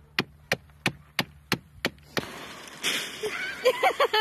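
A run of sharp, evenly spaced knocks, about three a second, which stops about two seconds in. Then a steady rush of surf on a shingle beach, with voices and pebbles crunching underfoot.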